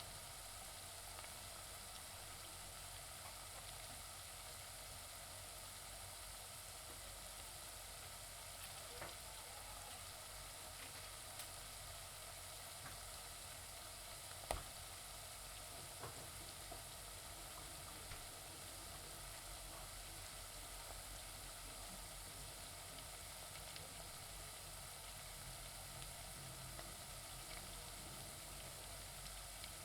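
Onions frying in a pan: a steady, faint sizzle with a few sharp pops, the loudest about halfway through.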